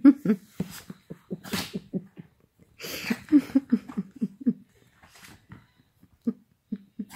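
A Yorkshire terrier and a cat play-fighting: a run of short low growls and grunts, with a few sharp breathy huffs at about one and a half and three seconds in.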